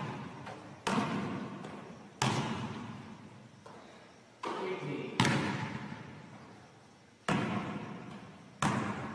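Basketball impacts during a shooting drill: the ball striking the rim, bouncing on the gym floor and being caught off a pass. About six sharp thuds, irregularly spaced, each ringing out in a long gym echo.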